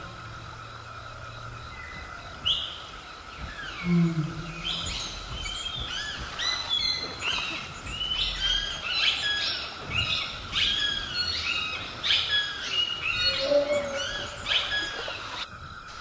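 Jungle ambience: many birds chirping in quick, overlapping calls from about four seconds in until near the end, over a steady high hum. A brief low animal call sounds about four seconds in.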